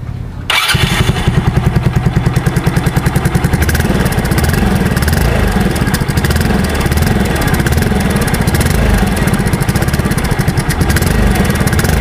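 Yamaha Mio Soulty scooter's single-cylinder four-stroke engine starting about half a second in and running through a Chicken Pipe V5 aftermarket exhaust with a makeshift silencer insert in its outlet, a fast, even exhaust beat. With the silencer fitted, the tone is one the owner calls not nice.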